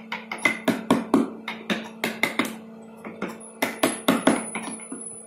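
Mallet striking a wood-carving chisel in quick, irregular knocks, about three or four a second, with a short pause a little past the middle. A steady low hum runs underneath.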